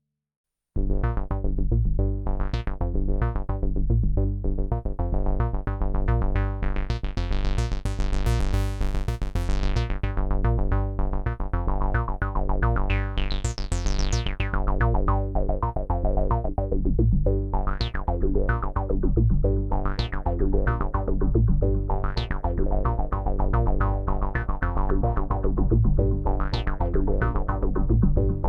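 Arturia MicroFreak synthesizer playing a repeating pattern over a heavy bass line, fed through a Behringer VD-400 analog delay pedal so the notes echo. It starts about a second in after silence, and the tone brightens sharply twice, about a third of the way through and again near the middle.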